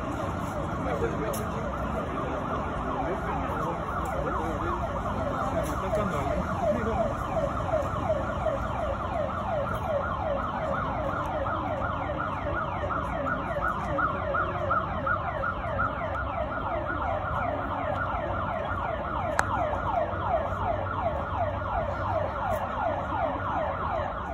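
Siren sounding a rapid yelp, its pitch sweeping up and down several times a second, growing clearer about halfway through and stopping near the end.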